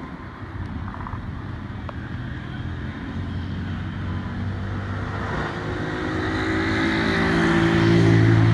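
A motor vehicle's engine running with a steady low hum, growing steadily louder through the clip and loudest near the end.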